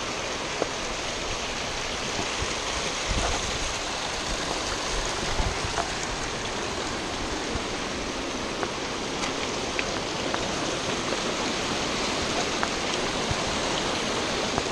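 Mountain stream cascading over rocks: a steady rushing and splashing of water, with a few faint clicks scattered through it.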